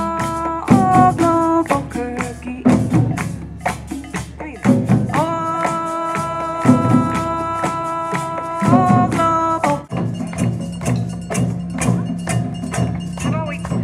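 Live hand-percussion music: long held sung notes over shakers and a cajón keeping a steady beat. About ten seconds in it cuts abruptly to a different percussion-led piece with a lower, pulsing tone.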